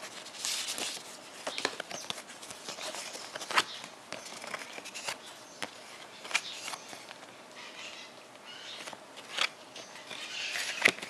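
Printed art cards and their paper envelope being handled and leafed through: scattered light clicks and short paper rustles.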